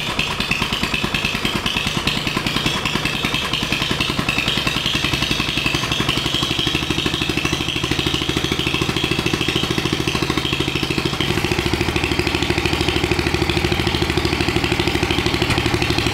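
Turbocharged, fuel-injected Predator 420cc single-cylinder engine idling steadily just after starting, its self-learning fuel injection still adapting and the engine running a little rough. Its note shifts slightly about eleven seconds in.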